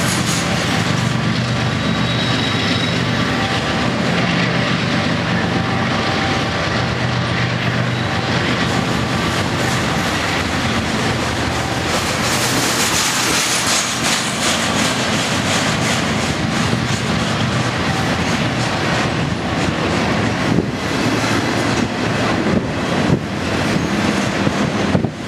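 BNSF diesel locomotives pulling a double-stack intermodal train, with a steady engine drone under loud rolling noise. In the last few seconds, sharp clicks and clatter from the car wheels crossing rail joints come through more often.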